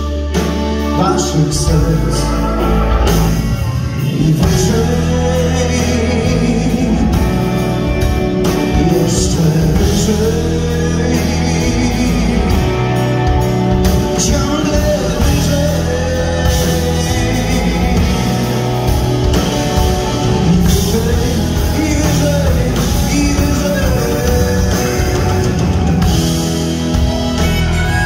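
Live blues-rock band playing a song through a PA: electric guitars, bass guitar and drums, with a melodic line that bends in pitch over a steady beat.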